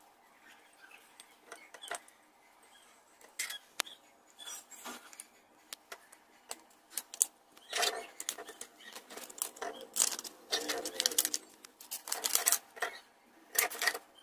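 Irregular clicks, knocks and rustling from a ceramic mug being handled at a mug heat press. The sounds are sparse at first and become busier from about eight seconds in.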